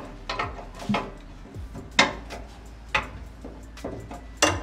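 Hand tools clinking against metal fittings under a truck's radiator: a handful of sharp, irregularly spaced metallic clinks.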